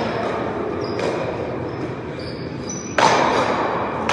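Paddleball rally: a hard rubber ball smacked by a wooden paddle and off the wall, one sharp loud hit about three seconds in and another at the end, echoing in the large hall. Short high squeaks from sneakers on the court come between the hits.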